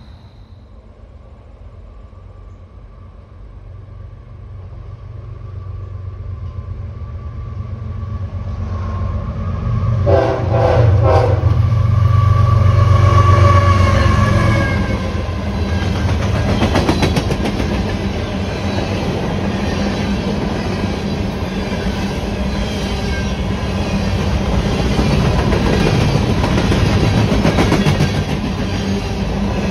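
Diesel freight train approaching and passing close by: the locomotive's engine grows louder, its horn sounds briefly about a third of the way in, and after the locomotive passes, open-top hopper cars roll by with wheels clicking over the rail joints.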